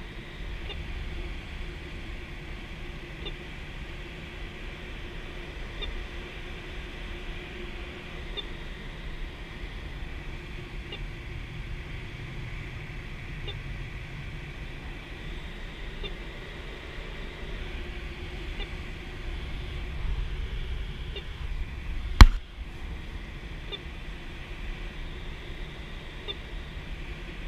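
Steady rush of air over the canopy of a K13 glider, with the electronic variometer sounding a thin steady high tone and faint chirps about every two and a half seconds, very strange noises from the vario. One sharp knock late on is the loudest sound.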